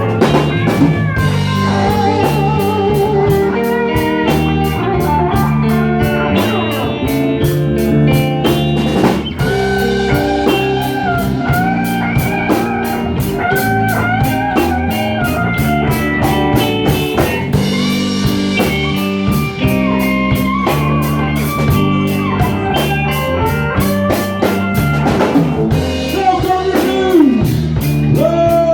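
Live blues band playing: a lead guitar line with bent, wavering notes over changing bass notes and a drum kit keeping a steady beat.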